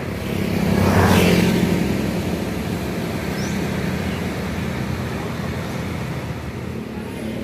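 Road traffic: a motor vehicle passes close by about a second in, growing louder and then fading. A steady low engine hum continues after it.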